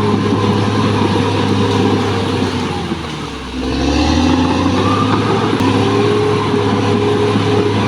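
Caterpillar D6R XL bulldozer's diesel engine running steadily under load, easing off briefly about three seconds in and picking up again.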